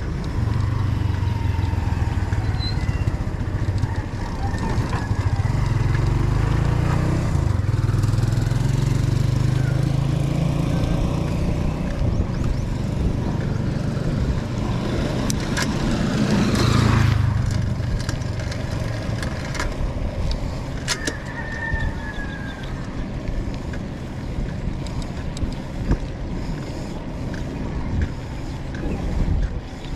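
A motor running steadily with a low hum, swelling into a louder rush of noise about 16–17 seconds in. After that it runs more quietly, with a few scattered clicks.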